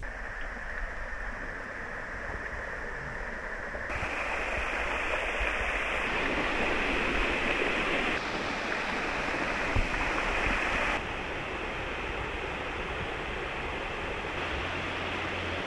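Rushing water of a river spilling over a low concrete weir, a steady hiss that changes abruptly in level and tone about four times.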